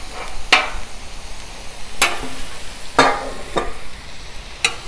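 Shrimp sizzling on the steel top of a flat-top griddle, broken by about four sharp metal clacks and scrapes as a metal spatula works the shrimp and a stainless basting dome is set down over them.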